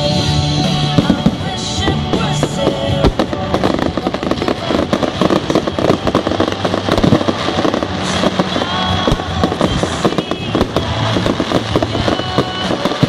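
Fireworks going off in quick succession: many bangs and crackles from bursting shells and rising comets, over music playing throughout.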